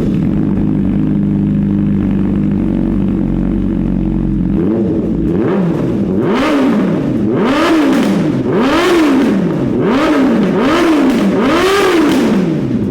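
Honda CBR1000RR inline-four idling steadily through an open Arrow titanium race exhaust with no dB killer. After about four and a half seconds the throttle is blipped over and over, about once a second, each rev rising and falling back.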